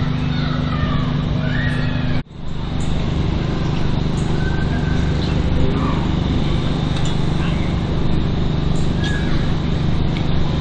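A small engine running steadily at a constant speed, cutting out briefly about two seconds in, with birds chirping over it.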